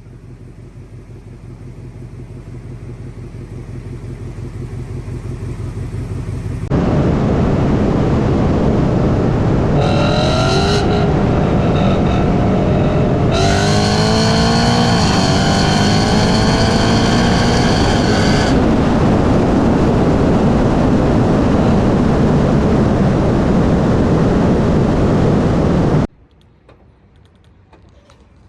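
2018 Ford Mustang GT's 5.0 V8 with aftermarket headers, pretty loud: a pulsing exhaust note that grows louder for several seconds, then breaks into a loud hard-driving rumble with rising-pitch pulls as it accelerates, before cutting off abruptly to a much quieter engine sound near the end.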